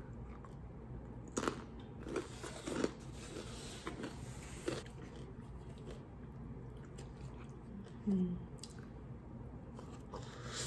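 A person biting and chewing takeout food close to the microphone, with a few sharp clicks between one and five seconds in. A short hummed 'mm' comes near eight seconds.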